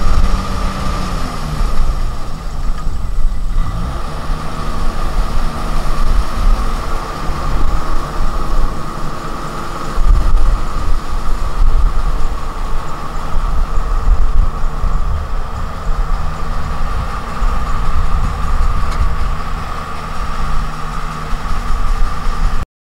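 Kubota DC-70 Plus rice combine harvester running, its engine note dipping and then rising in pitch a few seconds in, over a steady high whine. The sound cuts off suddenly near the end.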